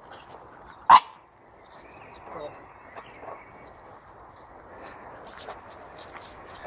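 A small dog barks once, sharply, about a second in. Birds chirp in short repeated phrases in the background.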